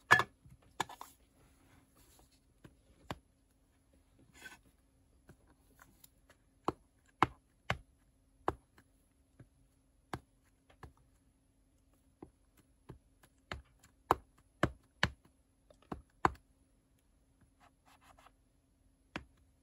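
Plastic-cased ink pad dabbed again and again against the face of a rubber stamp to ink it: a string of sharp, uneven taps and clicks.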